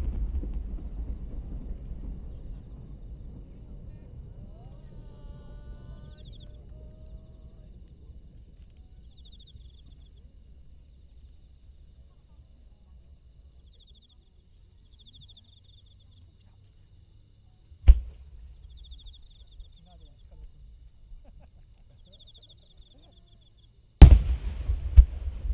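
Distant aerial fireworks shells. The low rumble and echo of earlier bursts dies away over the first several seconds, then comes a single sharp bang about two-thirds of the way through, and near the end a loud bang followed by a few more. Insects chirp steadily at a high pitch throughout.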